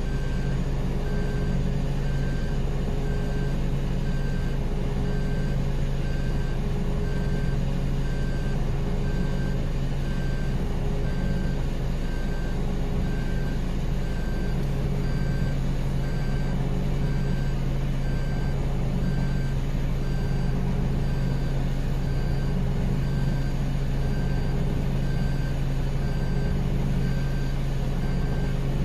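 Off-road vehicle engine running steadily, with an evenly repeating electronic beep, like a reversing alarm, over it.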